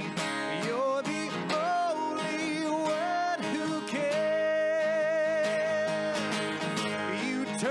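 Background music with acoustic guitar, carrying a melody with long held, wavering notes.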